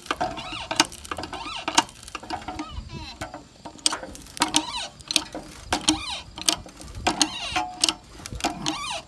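Hand-pumped 20-ton bottle jack, worked on its side with an extended handle, pressing the teeth of gang-nail truss plates into wood: irregular sharp clicks and creaks from the pumping, with a man grunting from the effort.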